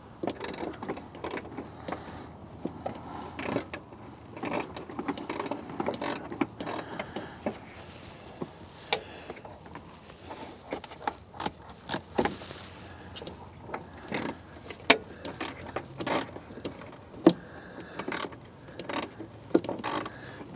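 Irregular plastic clicks, taps and light rattles of a Jeep tail light part being handled and worked into place by hand.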